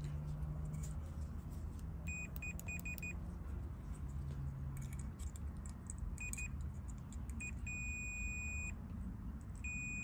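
Fluke digital multimeter's continuity beeper sounding as its probes touch the terminals of a rocker switch: a run of short, broken chirps, a brief beep, then beeps about a second long, signalling continuity through the switch contacts.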